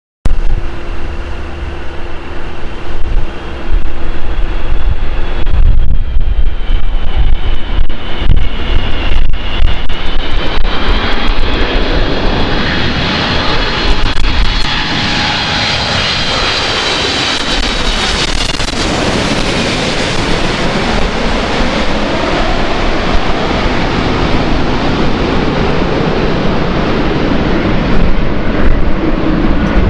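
A Boeing 777 twin-engine jet on final approach passes low overhead with its landing gear down. The whine of its turbofans grows louder, then drops in pitch as the aircraft passes about 18 seconds in, giving way to a steady jet rumble. Gusts of wind buffet the microphone through the first half.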